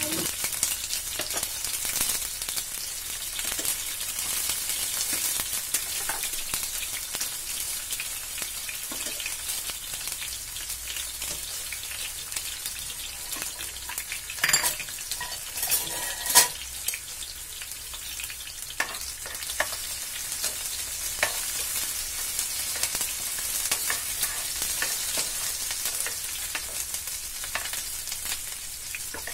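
Chopped onion, green chillies, curry leaves and garlic sizzling in hot oil in a frying pan, a steady hiss with scattered crackling pops. Two louder clicks come about halfway through, and a spatula stirs the pan near the end.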